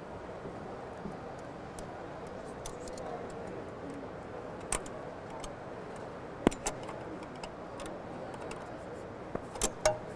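Sharp metallic clicks and taps as the peel and pinch rollers and their captured fasteners are worked out of a Zebra ZE500 print engine's print mechanism, with a quick run of three clicks near the end as a roller comes free. Under them is the steady hum of a busy exhibition hall.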